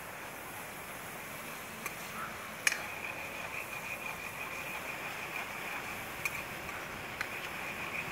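Sliced onions and green chillies frying in oil in a wok over a wood fire: a steady sizzling hiss, with a few sharp clicks and crackles.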